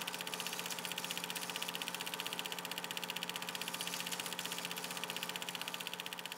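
Vintage film projector sound effect: a motor hum under a rapid, even clatter of the film mechanism.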